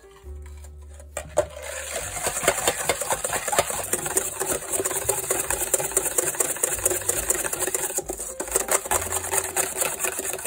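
Wire balloon whisk beating egg yolks and granulated sugar in a stainless steel bowl: rapid, even scraping and clinking strokes of the wires against the metal, starting about a second in.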